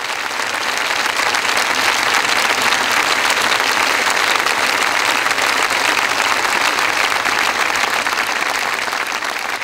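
Audience applauding. The clapping swells over the first couple of seconds, holds steady, then eases slightly near the end.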